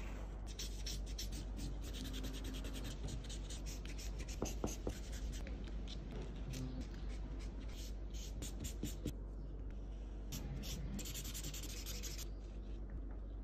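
Pen and marker tips stroking on paper: quick, scratchy strokes repeated many times, stopping about a second before the end, over a steady low hum.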